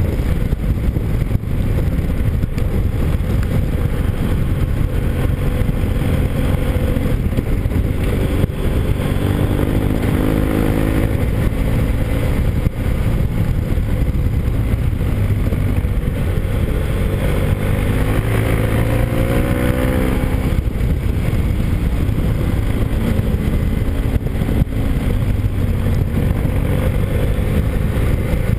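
Motorcycle engine running under way over heavy wind and road rumble on the bike-mounted microphone. The engine pitch climbs twice as the bike accelerates, about a third of the way in and again about two-thirds through, the second climb ending abruptly.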